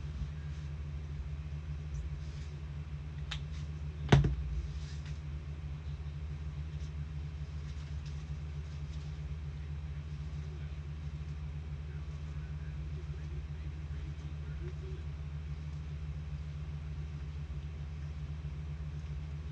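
Steady low hum throughout, with a single sharp thump on the table about four seconds in and a few faint clicks shortly before it.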